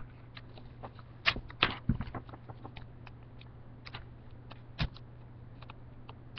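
Origami paper and sticky tape being handled and pressed down: scattered small crackles and ticks, a cluster of louder ones between about one and two seconds in and another near five seconds, over a low steady hum.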